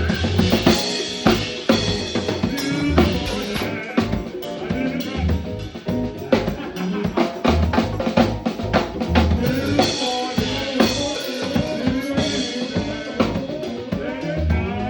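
Live band music driven by a drum kit, with bass drum and snare hits over sustained pitched instruments, and a run of quick snare strikes in the middle.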